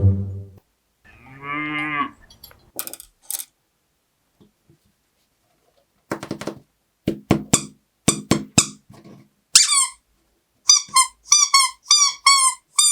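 Cartoon-style sound effects: a wobbling, moo-like call, a few clicks, short pitched blips, then a run of short squeaks that each fall in pitch, about two a second.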